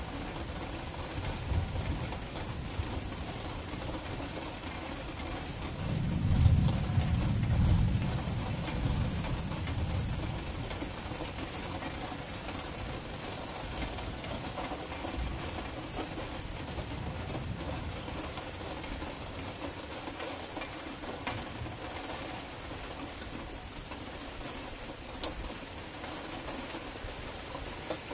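Steady rain of a night thunderstorm, with a low rumble of thunder swelling about six seconds in and fading away over the next few seconds.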